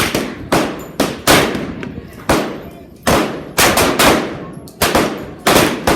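Semi-automatic .45 ACP pistol fire: a quick, uneven string of about a dozen shots, some in fast doubles, each ringing out briefly.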